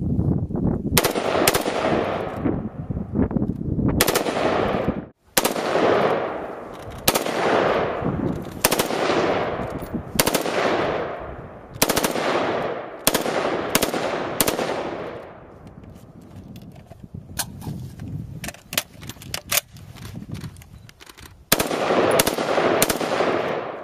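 Beretta ARX160 5.56 mm rifle firing, first as spaced single shots and then in quick strings of rapid shots from about two-thirds of the way in, each report trailing a long echo.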